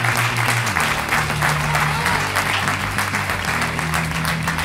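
Audience applauding, with music underneath whose low bass notes change every second or so.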